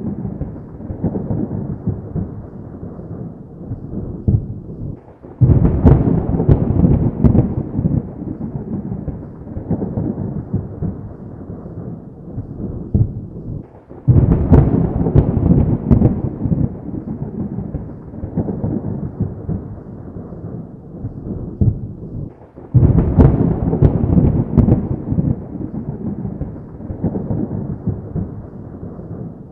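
Thunder rolling continuously, with three sudden loud peals about nine seconds apart, each trailing off into a long low rumble.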